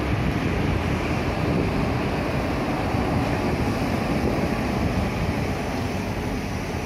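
Diesel engine of a large intercity coach running as the bus pulls away, with wind rumbling on the microphone.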